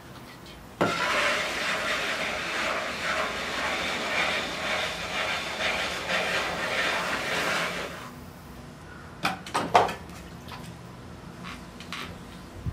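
A loud hissing, rushing noise starts suddenly about a second in and lasts about seven seconds. It is followed by three quick, sharp slaps as a lump of clay is thrown down onto the pottery wheel head.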